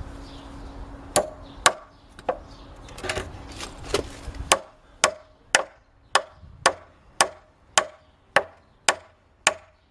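Hammer driving a nail into wood: a few spaced blows at first, then a steady run of about two strikes a second.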